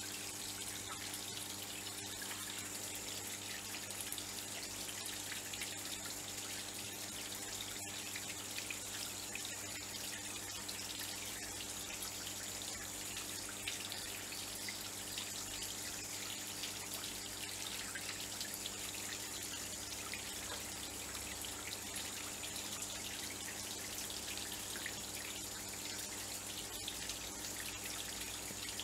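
Small garden-pond waterfall trickling and dripping over rocks, a steady, even sound. A faint steady high tone runs underneath.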